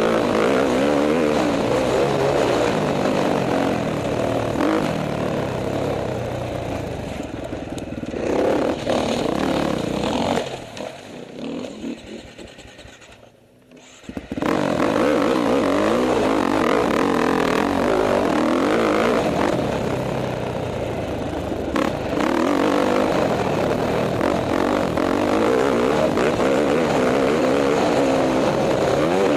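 KTM 450 XC-F dirt bike's single-cylinder four-stroke engine revving up and down as it is ridden hard around the track. Around 10 seconds in the engine falls away almost to silence, then comes back abruptly at full level at about 14 seconds.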